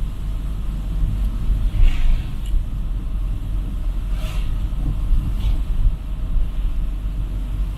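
Loud, steady low rumble, with a few faint short sounds higher up about two, four and five seconds in.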